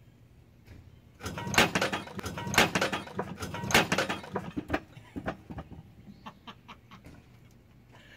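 A pickup's rear axle assembly with its differential and drum brakes coming down off a floor jack and wood blocks onto concrete. About a second in comes a burst of heavy metal clanks, knocks and scraping lasting a few seconds, which thins into scattered lighter knocks and clicks.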